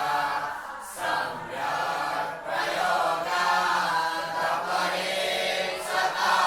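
A group of voices chanting a Hindu mantra together in unison, in phrases separated by brief pauses.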